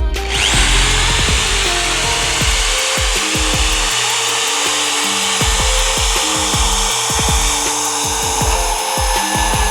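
Power drill running continuously, its bit boring into the plastered domed ceiling, a steady motor whine under a grinding hiss.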